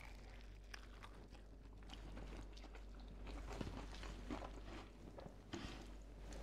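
Faint chewing of a crispy double-fried chicken sandwich, the batter coating crunching softly with each bite.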